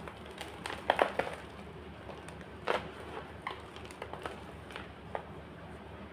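White gym chalk crunching and crumbling in irregular sharp cracks. A quick cluster of crunches about a second in is the loudest, with another strong crack a little later and smaller ones after it.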